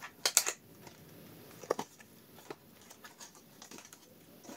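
Small clicks and taps of a cosmetics package being handled, the box of ampoules and its contents: a quick run of sharp ticks shortly after the start, two or three louder taps around the middle, then scattered faint ticks.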